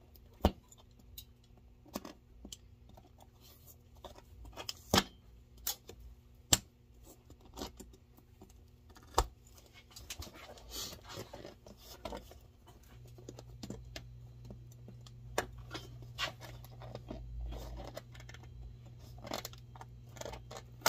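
Metal pincers gripping and pulling nails out of the heel of a leather boot: sharp metal clicks and snaps every second or so, with faint scraping between them. A low steady hum comes in about two-thirds of the way through.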